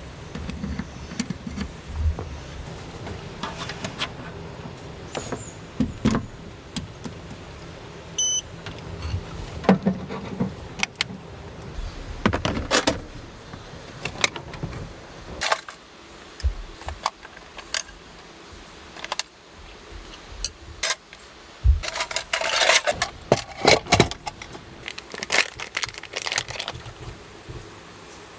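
Irregular clicks, knocks and rattles of objects being handled, with a burst of jangling, clinking clatter about three-quarters of the way through.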